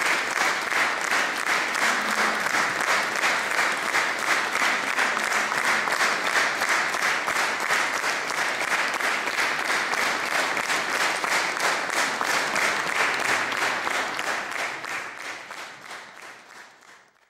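Audience applauding steadily, fading out over the last three seconds.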